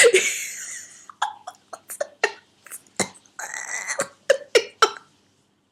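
A woman's involuntary spasm of coughing and throat clearing: a loud harsh burst at the start, then a string of short hacks and throat-clears, with one longer strained sound in the middle. The spasm comes from whooping cough in its fifth week, with swollen vocal cords.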